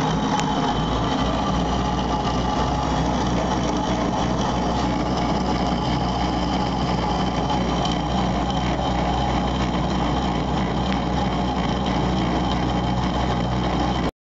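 Dashin Prince metal lathe running steadily, an even motor and gearing hum with a rattling whir over it; it cuts off abruptly just before the end.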